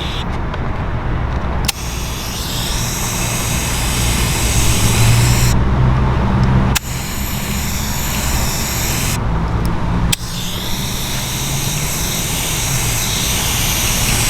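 Air spray gun hissing in three long bursts as texture dye is sprayed onto a vinyl door panel. Each burst starts with a sharp click, and a steady low hum runs underneath.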